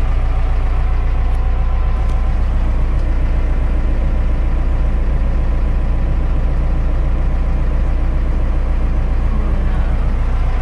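Mercedes-Benz 711D van's diesel engine idling steadily, heard from inside the cab.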